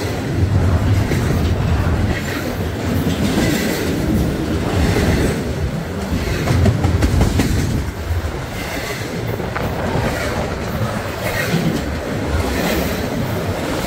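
Railroad train rolling past, a steady rumble with the wheels clicking over rail joints throughout.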